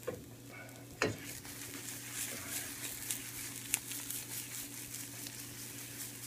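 Beaten eggs sizzling and crackling in butter in a small wok on a gas burner as the pan is swirled and tilted. Two knocks of the pan against the burner grate come right at the start and again about a second in.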